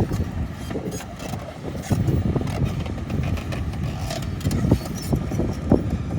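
Engine of a heavy construction machine running with a low rumble, with irregular knocks and clatter.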